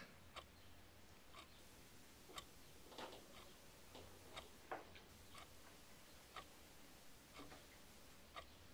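A clock ticking steadily about once a second in a quiet room, with a few fainter, irregular small clicks between the ticks.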